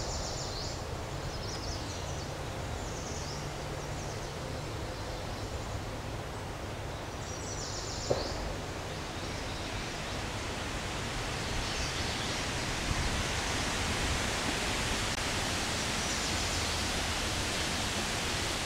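Steady outdoor background hiss that grows a little louder in the second half, with faint high twittering now and then and a single short click about eight seconds in.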